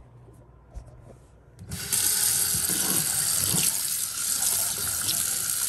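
Moen 7864SRS pulldown kitchen faucet turned on about two seconds in, sending a steady strong stream of water splashing into a stainless steel sink basin.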